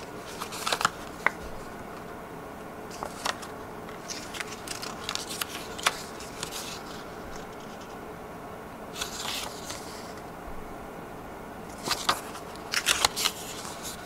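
A paper instruction leaflet being opened and unfolded by hand: crisp paper rustling and crackling in several short bouts, loudest about a second in and again near the end.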